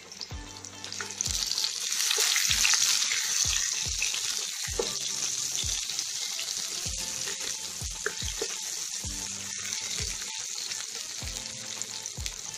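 Chopped onions sizzling in hot oil in a kadai as they are fried soft, with wooden spatula strokes against the pan. The hiss swells about two seconds in, then slowly eases.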